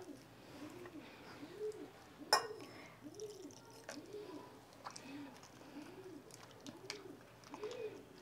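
A pigeon cooing over and over, faint and evenly paced, each coo a short rise and fall in pitch. Under it comes the soft squelch of a hand mixing thick gram-flour batter in a bowl, and a single metal clink about two seconds in.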